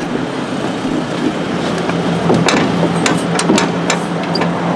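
A locked metal-framed glass door rattling and knocking in its frame as its brass pull handle is tugged: a quick run of sharp clacks past the middle. The door stays shut because the office is closed.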